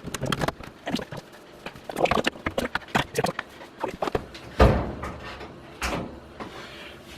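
A washing machine being pulled and shoved back into place across the floor: a string of irregular knocks and clacks from its body and feet, with a heavy thump a little past halfway and another soon after.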